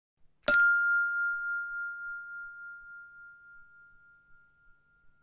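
A single bell-like ding, struck once about half a second in. Its one clear tone rings on and fades away over about four seconds.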